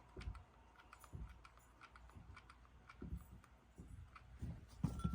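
Faint, scattered light clicks and taps from hands handling craft materials while gluing a small piece in place.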